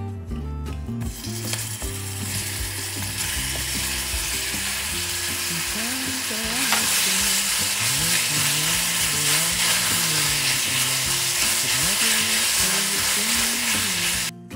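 Food sizzling in a hot pan, with some stirring; it starts about a second in, grows louder about halfway through and cuts off suddenly near the end. Background music plays underneath.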